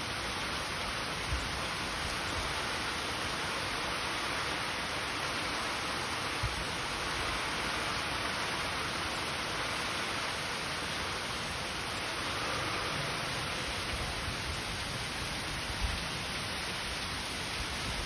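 Heavy rain pouring down steadily on trees, grass and a flooded driveway, an even hiss.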